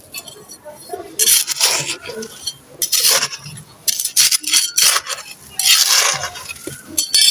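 Gritty sand cement with small white stones being scraped and crumbled in a run of rough scraping strokes, about one a second, with a few sharp clicks near the end.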